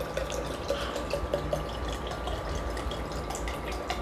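A drink poured in a thin, steady stream from a plastic bottle into a tall glass, splashing into the liquid as the glass fills.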